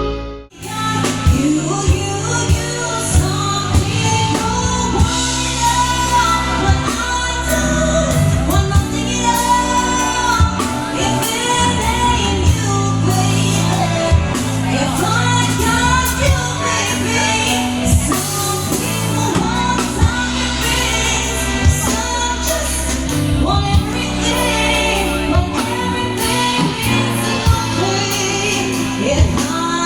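A singer performs a song over a band accompaniment with regular drum hits. It comes in after a brief drop in sound about half a second in.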